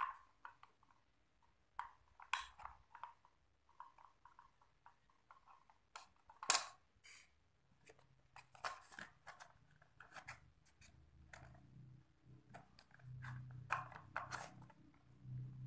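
Small hard-plastic clicks and taps from a toy's hinged plastic case being handled and shut, with one sharp, much louder snap about six and a half seconds in.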